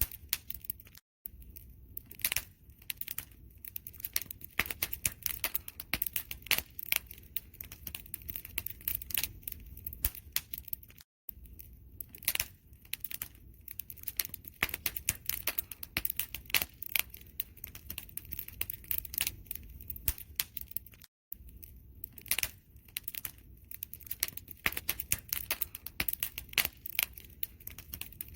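Wood fire crackling: a dense, irregular run of sharp pops and snaps over a low rumble of the flames. The sound drops out completely for a split second about every ten seconds.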